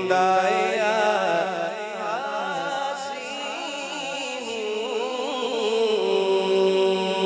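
Hamd sung by a man's voice, drawn out without words in wavering melodic runs over a steady low drone, settling into a held note near the end.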